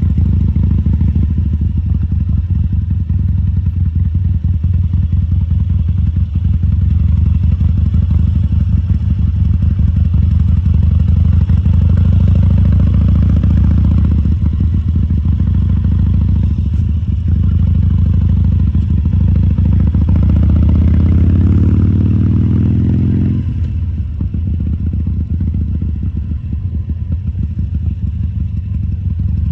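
2014 Harley-Davidson Sportster XL1200C's 1200 cc air-cooled V-twin running at low speed. The engine pitch rises gradually through the middle, then drops off suddenly about three-quarters of the way through, and the engine runs on more quietly after that.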